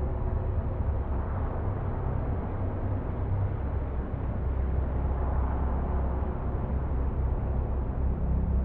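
Sci-fi UFO hovering sound effect: a steady low rumbling drone with faint humming tones and a light hiss above it, swelling slightly about halfway through.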